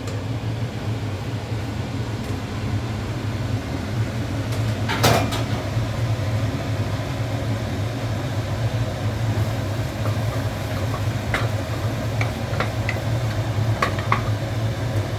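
Kitchen cooking sounds over a steady low mechanical hum: one sharp clatter of a metal pot or utensil about five seconds in, then several light clinks of a spoon on the pot near the end.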